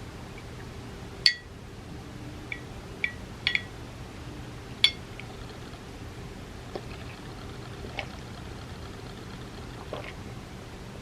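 Glass clinking: a handful of sharp taps that each ring briefly, the loudest about a second in and about five seconds in, over a steady low hum.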